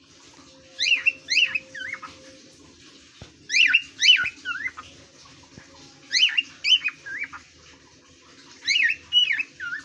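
Male cockatiel singing its whistled courtship song to its mate: four short phrases of quick rising-and-falling whistles, each about a second long, repeated every two to three seconds.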